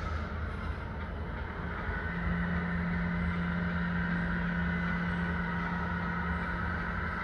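1/14 Tamiya Mercedes-Benz 1850L radio-controlled truck driving, a steady mechanical running noise with a low rumble. A steady low hum joins about two seconds in and holds until just before the end.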